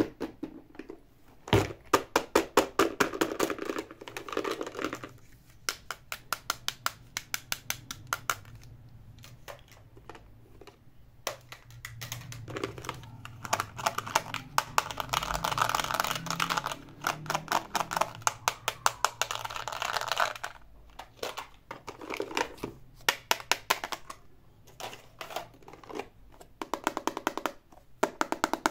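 Zipper of a fabric makeup bag being pulled slowly open: runs of rapid clicks from the zipper teeth alternate with stretches of scratchy rustling. Near the end there is light handling of hard plastic toys.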